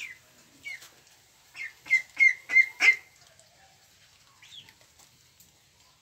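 Half-grown Pekin ducklings peeping: short, high calls, a quick run of about five in a row from about one and a half to three seconds in, with a few fainter single peeps before and after.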